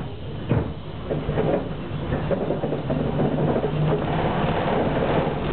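Tram running on rails, heard from inside the rear of the car as it pulls away and gathers speed: a steady low motor hum under rolling rail noise that grows louder over the first two seconds. Two knocks sound at the start and about half a second in.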